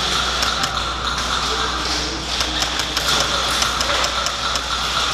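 Airsoft fire in an indoor arena: scattered sharp ticks of BBs and guns, with a quick run of them about two and a half seconds in, over a steady background hum of the warehouse.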